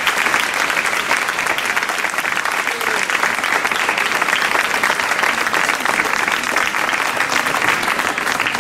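A crowd of people applauding, dense steady hand-clapping that keeps up at an even level throughout.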